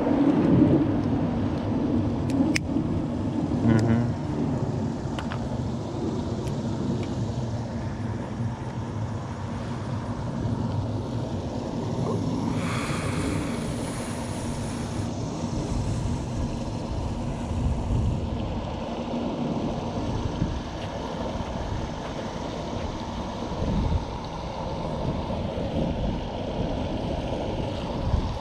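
Outdoor wind rumbling on the microphone, with a few faint clicks in the first few seconds and a brief hiss of about two seconds a little before the middle.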